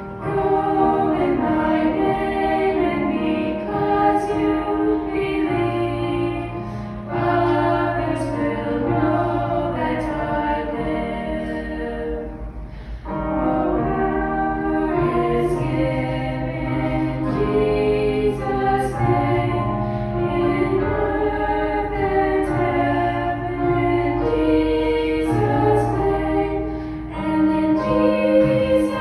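Slow worship music: sustained choral-sounding chords over a held bass line, changing every second or two.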